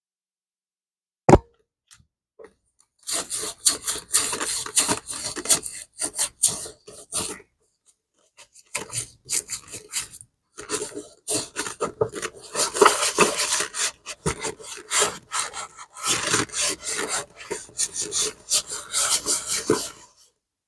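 A brush scrubbing a leather bag in quick back-and-forth strokes, in several runs with short pauses. A single sharp knock sounds about a second in.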